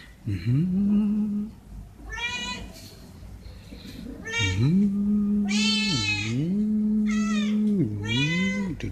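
Several stray cats meowing over and over for food: short, high meows overlapping with a lower, drawn-out call that dips in pitch and rises again.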